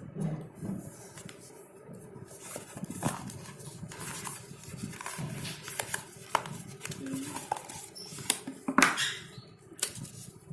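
Hands handling a phone's retail packaging: irregular small clicks, taps and rustles of cardboard and plastic as the accessories are taken out, with a sharper knock about nine seconds in.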